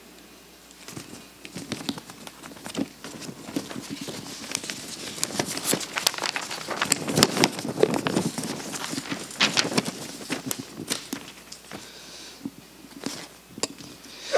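Irregular rustling, clicks and knocks of paper notes and a handheld microphone being handled, busiest midway through.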